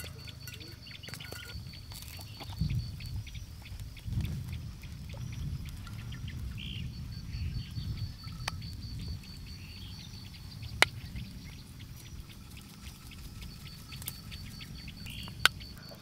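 Outdoor ambience with insects and birds chirping steadily, a low rumble in the middle, and a few sharp metal clinks from handling a steel cup and grill tongs, the loudest two near the end.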